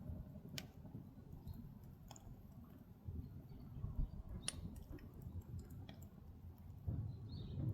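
Firewood burning in an agungi, the fire hole under a Korean ondol floor. It gives scattered sharp crackles and pops, one louder pop about halfway through, over a low rumble of the fire.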